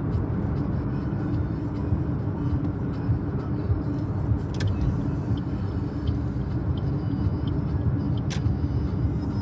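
Steady road and engine noise heard from inside a moving car's cabin at highway speed, with two sharp clicks, one about halfway through and one near the end.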